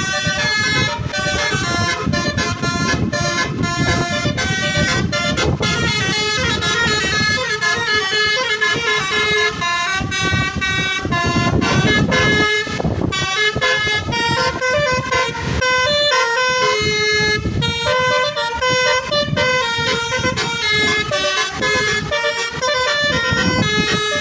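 Basuri "telolet" musical bus horn playing a melody of quick stepping notes, over a steady low rumble.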